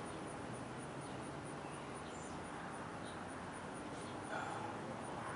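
Quiet, steady background hiss with no clear event: room tone.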